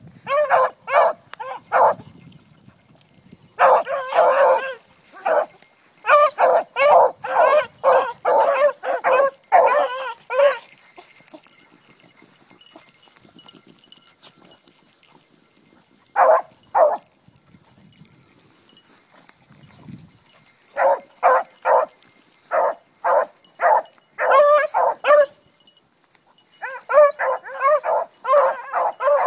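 Beagles baying in short, repeated barks, several a second, in bursts of a few seconds with quiet pauses between. This is hound voice as they work a scent through the field.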